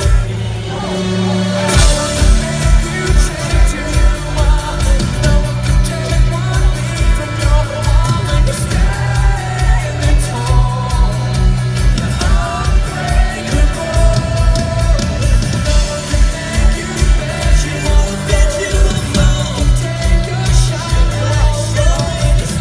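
Live rock band playing at full volume, with singing over a driving kick-drum beat about twice a second and a heavy bass line. The drums drop out briefly at the start and come back in about a second and a half in.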